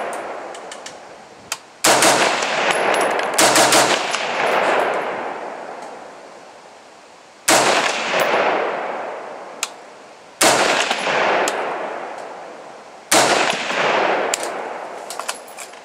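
Stag Arms Model 4 AR-15 rifle firing 5.56 mm rounds, with shots a few seconds apart and a quick pair or cluster near the start. Each report trails off in a long echo.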